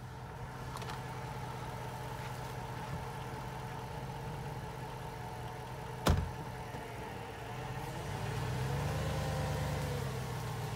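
Jeep Grand Cherokee idling with its front-mounted Slowin electric winch running, a steady mechanical hum. There is a single sharp knock about six seconds in, and the hum grows louder and wavers in pitch from about eight seconds in.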